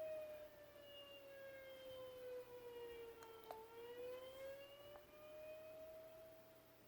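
Faint tornado warning siren wailing, its pitch slowly falling for about three and a half seconds and then rising again.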